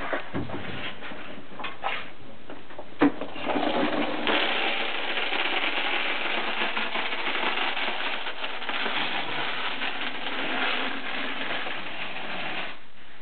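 1-inch river rock being poured into an interior French drain trench: a dense, continuous clatter of stones that starts after a sharp knock about three seconds in and stops abruptly near the end.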